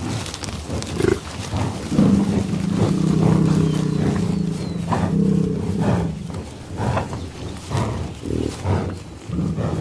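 Water buffalo grazing, giving a low, snoring rumble about four seconds long, then a shorter one near the end, among the short crunches of grass being torn and chewed.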